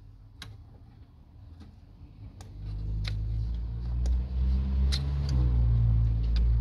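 Light clicks and taps of hands handling a diesel fuel filter canister and its plastic hose clips. From about two and a half seconds in, a loud low vehicle engine rumble comes in and holds.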